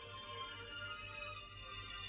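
Faint music playing from a radio, over a low steady hum.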